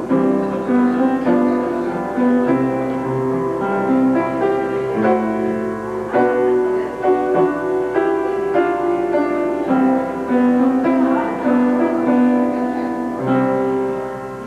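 Instrumental piano music, a wedding recessional played after the couple is presented, with chords changing about every second. It gets quieter near the end.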